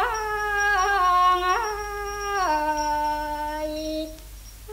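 Female voice singing a slow, ornamented Thai classical vocal line in long held notes that step and slide downward, fading out shortly before the end. A steady low hum from the old record runs underneath.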